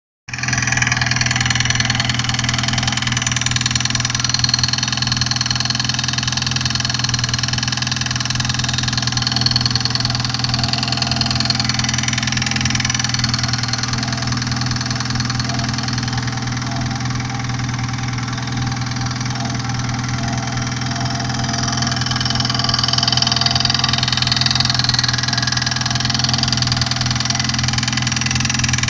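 Car engine idling steadily with a fast, even knocking from the gearbox bellhousing: the sign of a loose flywheel bolt.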